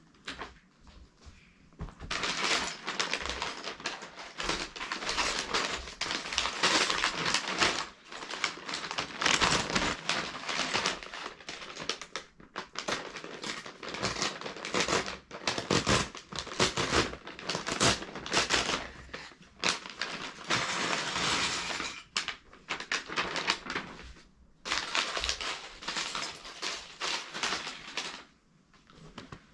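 LEGO set packaging being handled and torn open, crinkling and crackling in irregular bursts with short pauses, starting about two seconds in.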